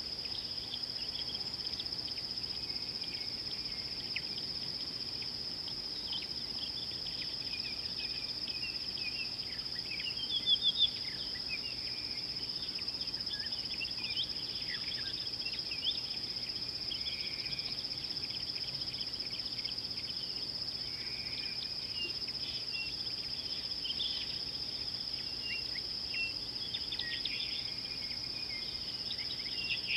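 Savanna dawn chorus: a steady high-pitched insect trill runs underneath many short bird chirps and trills. A quick run of louder bird notes comes about ten seconds in.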